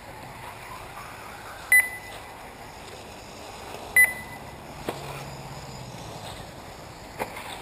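Two short, high electronic beeps about two seconds apart, typical of an RC race timing system beeping as cars cross the lap-counting line. A few faint clicks and steady outdoor background noise lie under them.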